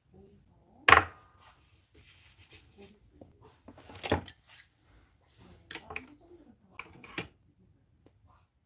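Hand tools and small parts being picked up and set down on a hard workbench: a few separate sharp clicks and knocks, the loudest about a second in and another about four seconds in, with light rustling of handling between.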